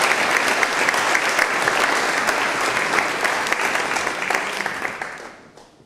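Audience applauding after the last chord of a live song, clapping dying away over the last second or so.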